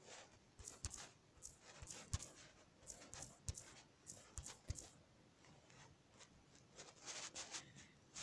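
Faint, irregular taps of a fingertip on a smartphone touchscreen as numbers are keyed into the calculator, over quiet room tone. A soft rustle near the end.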